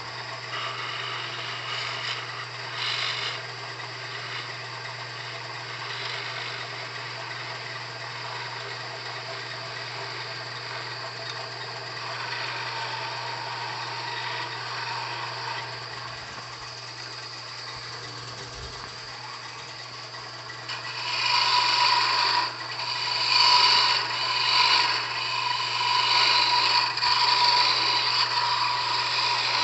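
Wood lathe running with a steady motor hum while a turning tool cuts a small spinning wooden spindle. The cutting is light at first and becomes much louder, in repeated strokes, from about 21 seconds in.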